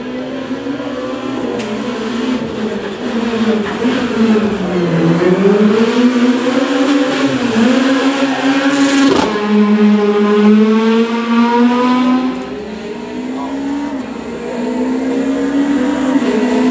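Opel Adam rally car's engine at full attack through a street stage: the revs drop as it brakes into a chicane, climb hard again, and a sharp crack about nine seconds in comes with an upshift, after which it holds high revs as it passes close. Near the end the next rally car's engine is heard approaching.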